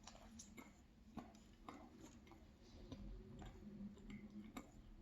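Faint chewing of a flaky almond croissant, with soft irregular crackles and mouth clicks.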